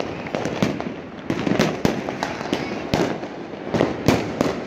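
Fireworks and firecrackers going off all around: irregular bangs and pops, several a second, over a continuous background of more distant explosions. The loudest bang comes about four seconds in.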